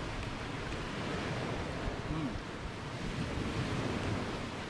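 Sea waves washing and wind blowing across the microphone, an even rushing noise.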